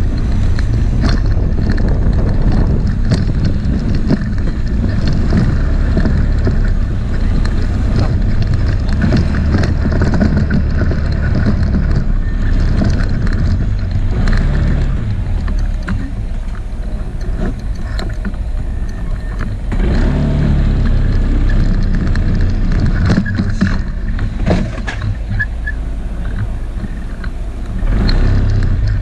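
A vehicle in motion: a steady, loud low rumble with scattered knocks and rattles.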